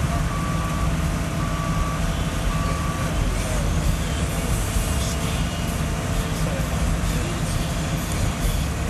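Heavy diesel engine of a Kobelco excavator running steadily with a low rumble. A backup alarm beeps about once a second for the first three seconds, then stops.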